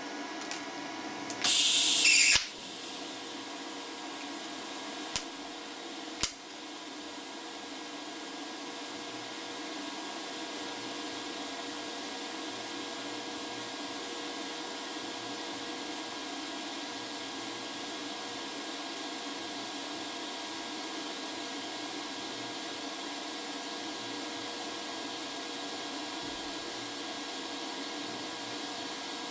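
FoxWeld UNO TIG 200 DC Pulse TIG welder running a bead at 100 amps in 2T mode. A loud harsh burst comes about two seconds in as the arc strikes, two sharp clicks follow a few seconds later, and then the steady hiss and hum of the DC arc goes on.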